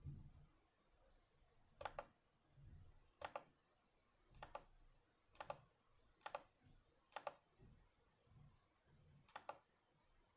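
Computer mouse button clicking through an installer, about seven separate clicks, each a quick press-and-release double tick, spaced a second or two apart. Faint low bumps fall between some of them.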